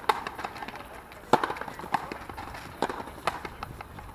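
Frontenis rally: the ball struck by rackets and smacking against the frontón wall, five sharp, loud knocks spaced about half a second to a second apart, with lighter clicks of footsteps between them.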